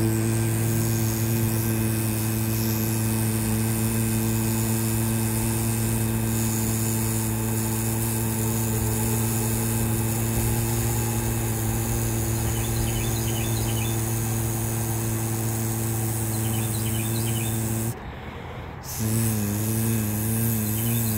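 A man's low vocal buzz held steady on one pitch, breaking off about eighteen seconds in and starting again a second later with a wavering pitch. Birds chirp faintly a few times.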